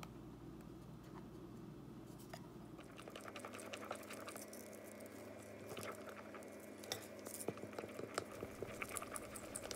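Wooden spatula stirring whipped cream into cream cheese in a glass bowl: faint, irregular light clicks and scrapes, starting about three seconds in and growing more frequent towards the end.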